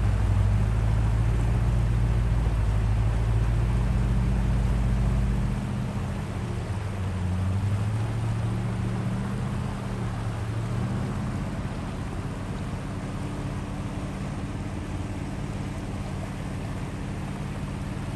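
Vehicle engine running with a steady drone; the deep low rumble drops away about five or six seconds in, and the engine runs on more lightly.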